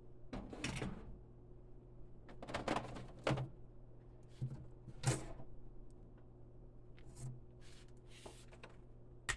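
Cardboard box and packaging being handled: a series of short rustles and a few sharp knocks, the sharpest about five seconds in.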